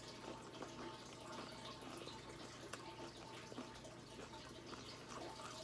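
Faint crunching and chewing of tortilla chips in the mouth, a run of small irregular clicks over a steady low hum.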